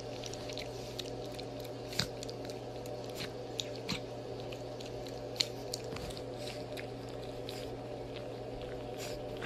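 A pug chewing and licking: irregular mouth clicks over a steady low hum.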